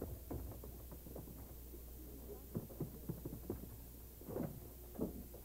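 A hospital supply cart being wheeled in and its metal bowl and supplies being handled: a series of light knocks and clinks, with two short pitched squeaks or clinks near the end, over a steady low hum.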